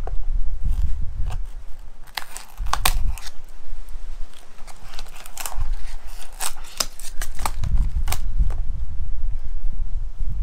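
Hands taking apart a broken iPad: irregular clicks, crackles and taps of plastic, metal and glass parts being handled and pried, over a low rumble.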